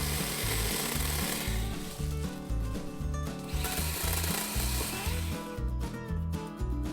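Cordless 21-volt Yatiddy mini chainsaw cutting brush in two spells, the first ending about a second and a half in and the second around the middle, over background music with a bass beat. The music carries on alone near the end.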